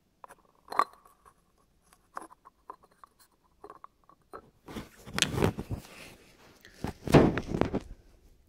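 Close handling noise: scattered light clicks and scraping rustles, with two louder stretches of rubbing about five and seven seconds in.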